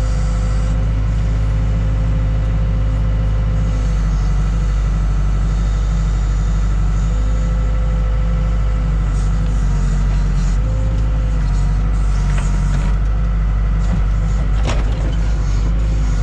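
Case 580K backhoe's four-cylinder diesel engine running steadily under working load, its tone wavering slightly now and then as the load changes, with a single sharp knock near the end.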